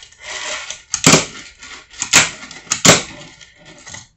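Fingerboard with a clear deck and Teak Tuning trucks being ollied on a tabletop: sharp clacks of the tail popping and the board landing, about four in all, the last two close together.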